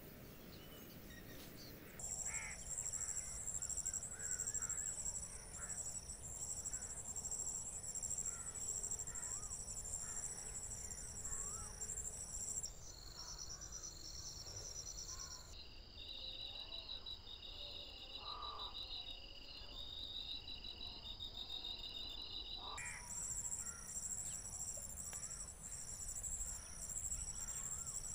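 Insects trilling in fast, even pulses, starting about two seconds in. Their pitch drops lower twice, around the middle, and jumps back up near the end. Short bird calls sound here and there underneath.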